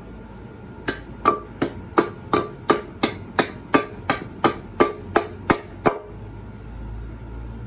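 Husqvarna carpenter's axe chopping a pine spoon blank held on a log chopping block: a quick, even run of about fifteen strikes, roughly three a second, starting about a second in and stopping about six seconds in.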